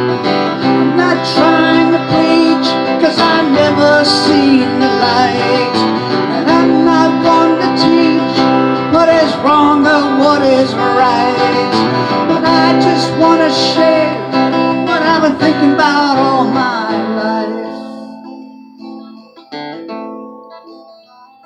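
Acoustic guitar playing an instrumental break, strummed and picked with some bending notes. About seventeen seconds in it drops away to soft, sparse notes.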